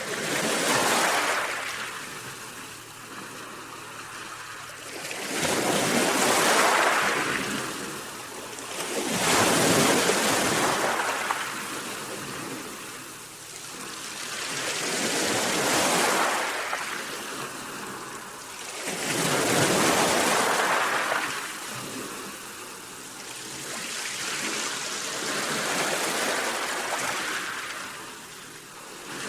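Sea waves breaking in repeated surges of hiss and rush, each swelling and fading, about six over the span at roughly four- to six-second intervals.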